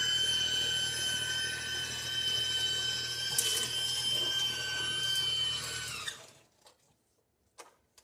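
Battery-powered EGO two-stage snowblower running with a steady high electric-motor whine and hum. It shuts off about six seconds in, its pitch sagging briefly as it stops.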